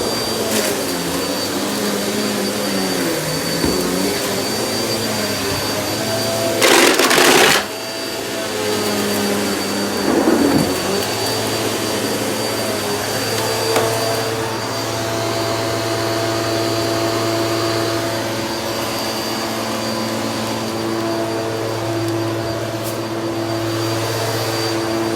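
Vacuum cleaner running steadily, its motor pitch wavering at first and then settling. About seven seconds in there is a loud burst of noise lasting about a second, and a shorter one comes a few seconds later.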